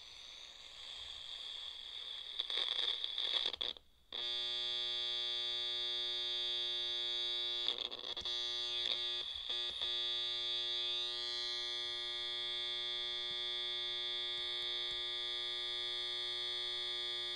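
Circuit-bent clock radio's speaker hissing with static and crackling for about four seconds, cutting out, then giving a steady harsh electronic buzz, with a few crackles a few seconds after it starts.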